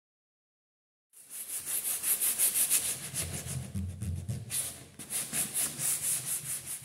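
Hand-held sanding sponge rubbed back and forth over a painted wooden panelled door in quick, even strokes, scuffing the old paint before repainting. It starts about a second in.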